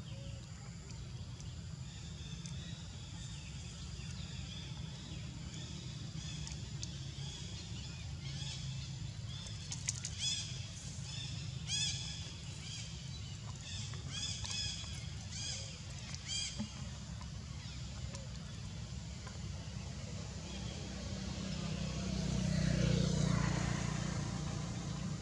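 A run of short, high chirping calls repeats for about ten seconds over steady outdoor background noise. Near the end comes a louder rushing swell.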